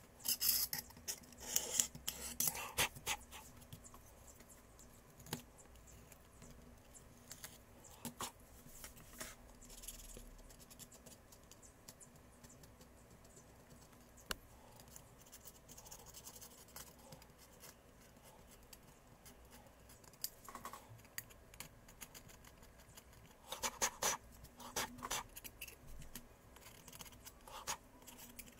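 Hands and small tools working on a tablet during a screen replacement: irregular scraping, light clicks and taps of plastic and glass parts, coming in short clusters with quieter pauses between.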